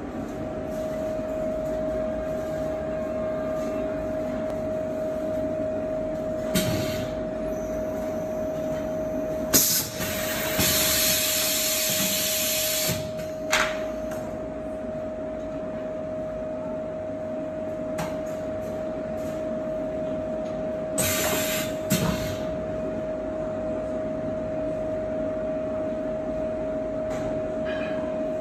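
Double-manipulator PVC blister sealing machine running: a steady machine hum with one constant tone, broken by short bursts of air hissing several times and one longer hiss of about three seconds around ten seconds in.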